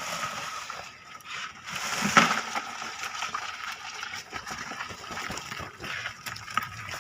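Water sloshing and splashing unevenly, with a louder splash about two seconds in.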